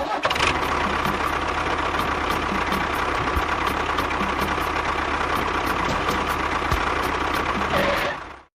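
A small motor running steadily with a continuous mechanical hum, which cuts off suddenly about eight seconds in.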